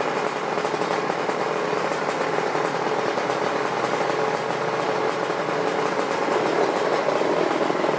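A drag-racing motorcycle engine running steadily at a fast idle, with a rapid, even exhaust pulse.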